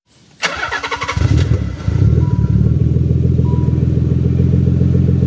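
An engine starting: it cranks and catches about half a second in, runs roughly for a second or so, then settles into a steady, even idle.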